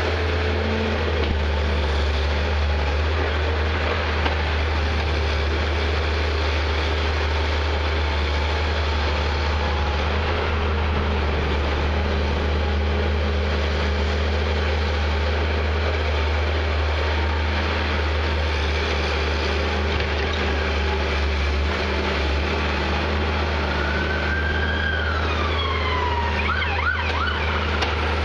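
Prentice 210E log loader's diesel engine running steadily under load as it works the boom, with a low, even hum. Near the end a whine rises and then falls in pitch.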